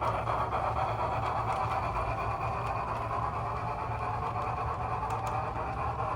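Model train of the steam locomotive Tornado running steadily on the track with four coaches: a motor hum under the metal wheels rolling on metal rails.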